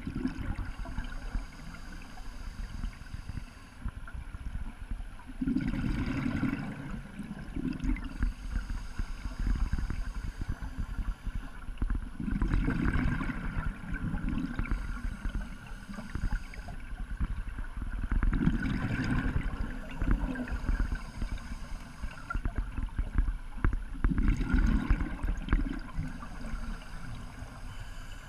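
Scuba diver's exhaled breath bubbling from a regulator underwater, gurgling in bursts every five to six seconds in time with the breathing.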